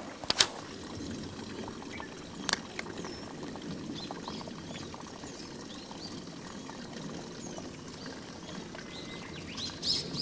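Steady trickle of running water with small birds chirping intermittently, the chirps thicker near the end. A sharp click sounds just after the start, and a fainter one a couple of seconds in.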